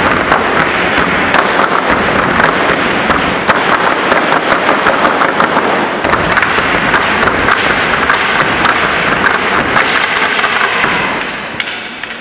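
Stepping routine with stomps, claps and sticks striking the gym floor: a loud, dense, rapid clatter of impacts that dies down near the end.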